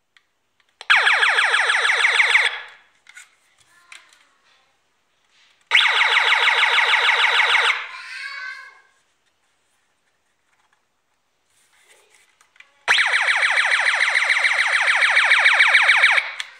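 Electronic sound effect of a vintage Edison Giocattoli Super Tharos toy raygun, set off by its trigger three times: each burst is a rapidly pulsing electronic tone from the toy's speaker. The last burst is the longest, about three seconds.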